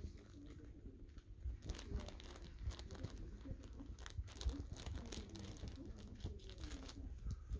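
A Pomeranian puppy lapping and nosing at a clear plastic water tub, with many irregular small clicks, crinkles and rustles.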